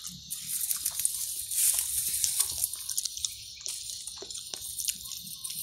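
Tall grass and leaves rustling and crackling as they are pushed through, a dense run of small crackles and snaps, loudest about two seconds in.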